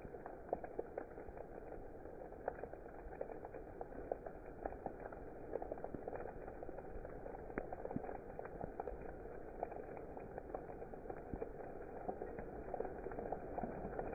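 Steady rain: a continuous patter with many separate drops landing at irregular moments.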